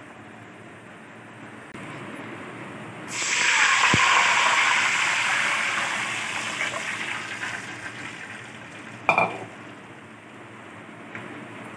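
Water pouring into a steel pot of whole red lentils, a rush that starts suddenly about three seconds in and slowly fades away. A short knock comes about nine seconds in.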